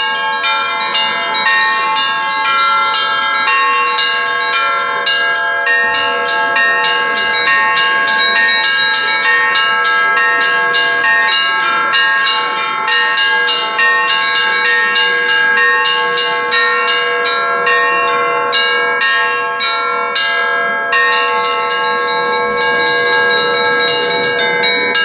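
Russian bells rung in a festive peal: a quick, unbroken run of strokes on the higher bells over the sustained ringing tones of the lower bells.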